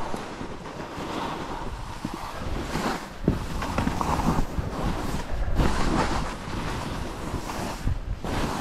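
Skis sliding and scraping over snow through a run of turns, a rushing hiss that swells and fades with each turn, mixed with wind buffeting the microphone.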